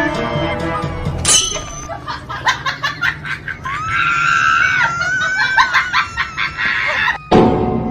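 A young child screaming and squealing in a high voice, in short repeated bursts with one long wavering squeal in the middle, cutting off suddenly near the end.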